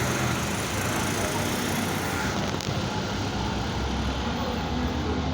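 Steady street noise of road traffic on a flooded road, with no single event standing out; the highest treble drops away about two seconds in.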